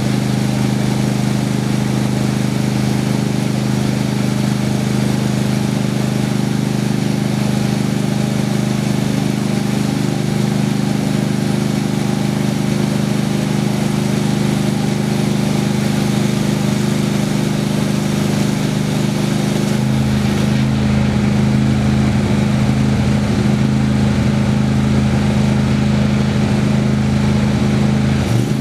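Engine of a homemade sawmill running steadily while the mill cuts cherry wood. About 20 seconds in, the sound changes and takes on more low rumble.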